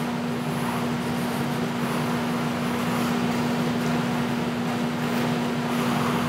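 Steady mechanical hum with one constant low tone over an even hiss, like a fan or air-conditioning unit running.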